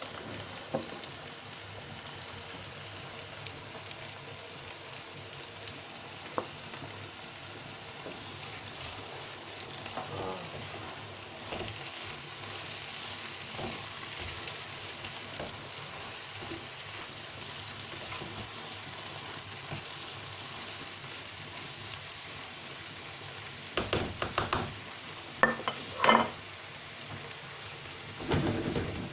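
Tomato-based stew sizzling in oil in a frying pan: a steady hiss with small scattered pops. Near the end a few louder sharp clatters come from a utensil knocking and scraping against the pan.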